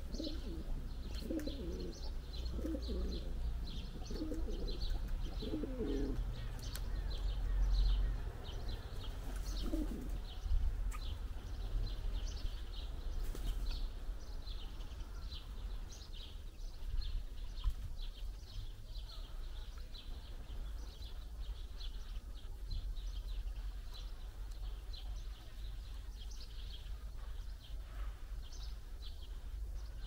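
A pigeon cooing: a run of low, soft notes over the first several seconds, and one more coo about ten seconds in. Small birds keep up a busy high chirping that thins out in the second half.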